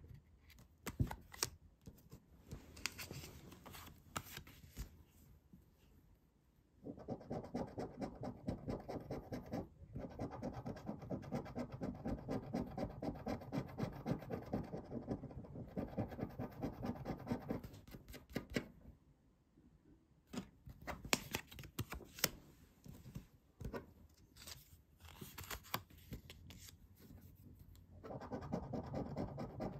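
A coin scratching the coating off paper scratch cards in fast back-and-forth strokes, in long runs broken by pauses. Between runs come lighter scrapes and sharp clicks as the cards are handled.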